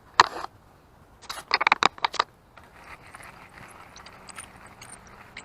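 Fishing rod and reel being handled: a sharp knock, then a quick run of clicks and rattles about a second later, followed by a steady hiss with faint light ticks as the lure is retrieved.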